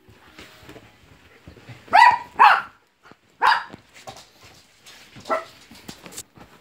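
Poodle barking: two loud barks in quick succession about two seconds in, a third about a second later, and a weaker one near the end.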